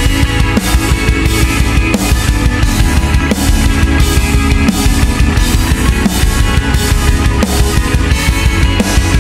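Background rock music with a steady drum-kit beat.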